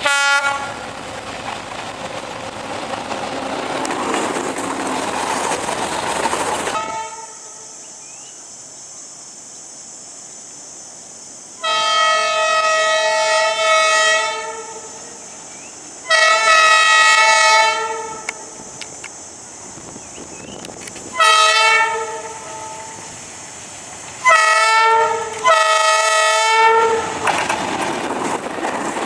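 A passing train's steady rush of wheel and rail noise, which stops abruptly. Then a diesel locomotive's horn sounds a series of five blasts over a quiet background: the first about three seconds long, the next two shorter, and the last two close together.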